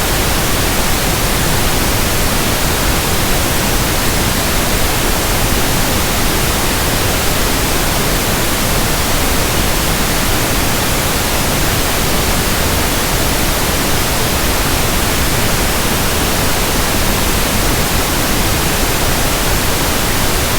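Steady pink noise: an even, unchanging hiss spread across the whole audible range, generated as a test signal.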